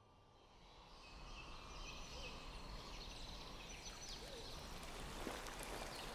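Outdoor forest ambience fading in, steadily growing louder: a soft hiss of background noise with many small birds chirping.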